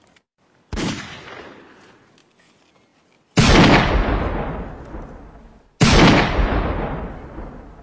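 Three gunshot sound effects: sharp blasts, each trailing off in a long fading echo, the first about a second in and the next two louder.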